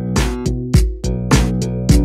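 Instrumental outro music with a steady beat, about one strong hit every 0.6 seconds.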